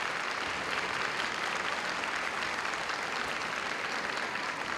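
Audience applauding steadily, many hands clapping at once, greeting the judges' decision.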